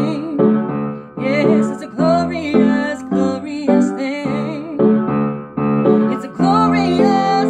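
Song's piano accompaniment playing repeated chords, settling into a long held chord about six and a half seconds in.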